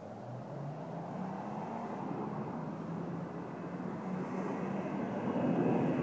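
BMW E46 M3's S54 straight-six, fitted with Supersprint race headers and an Eisenmann sport muffler, running hard in the distance and growing steadily louder as the car approaches.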